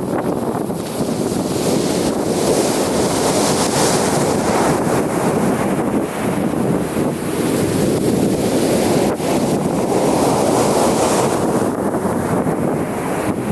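Ocean waves breaking and washing up the beach, a continuous rushing surf that swells and fades twice as waves come in, with wind on the microphone.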